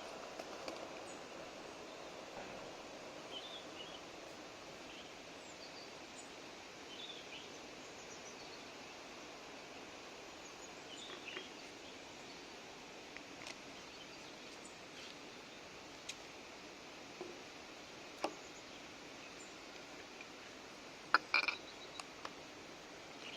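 Steady outdoor background noise with faint, scattered bird chirps and a few sharp clicks, with a louder cluster of clicks a little before the end.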